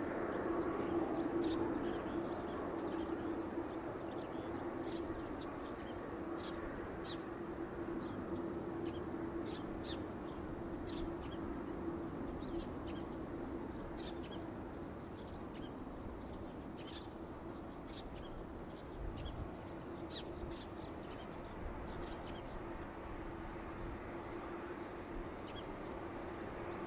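Boeing 747-8F's four GEnx-2B engines receding after takeoff: a distant jet rumble with a steady hum that slowly fades. Birds chirp in short calls throughout.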